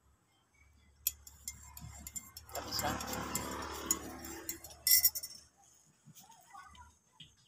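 Metal spoon clinking against the inside of a ceramic mug as a drink is stirred: a run of light clinks with one louder clink about five seconds in.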